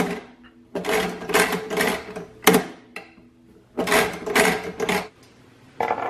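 Metal tools and steel kerosene-heater parts clattering and scraping in three short bouts, the middle one a single sharp clank, with a brief ringing of the metal between them.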